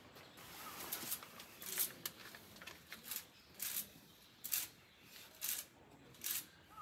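Footsteps, a short crunching step roughly every second, with faint bird chirps.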